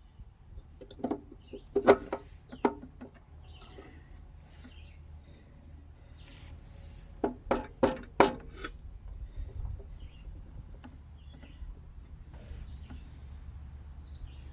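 Sharp knocks and clinks of tools and parts being handled on a small push-mower engine under repair, in two short clusters, about two seconds in and about eight seconds in.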